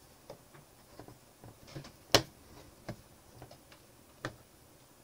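Scattered, irregular sharp clicks, the loudest about two seconds in, from a wire lead being tapped against a contact to throw sparks across a solenoid circuit, used as fake lightning for an AS3935 lightning sensor.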